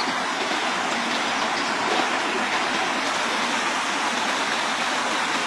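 Steady rushing water: an even hiss with no separate splashes or knocks.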